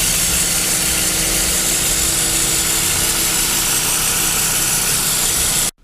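Kia Ceed 1.6 petrol engine idling steadily, its ribbed accessory drive belt squeaking. It is a squeak that belt dressing only silences for a few minutes, the same with the engine hot or cold. The sound cuts off abruptly near the end.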